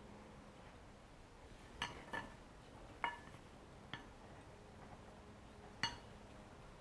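A handful of light clinks and taps from kitchenware being handled as fish fillets are pressed into a dry spice coating on a plate and set on a cutting board. A couple of the clinks ring briefly. The taps are spread a second or two apart over a quiet room.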